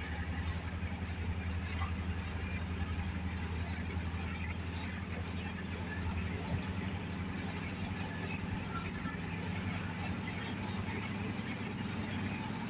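Caterpillar D9R crawler dozer's V8 diesel engine running steadily, a constant low drone with no change in pitch.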